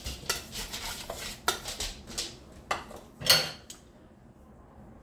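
A whisk scraping and tapping against a ceramic bowl, stirring breadcrumbs in short, irregular strokes. It gives a louder knock just after three seconds, then stops.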